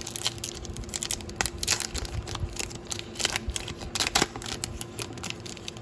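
Trading-card pack being torn open and the cards handled: a quick run of crinkling, crackling and clicking from the foil wrapper and card stock.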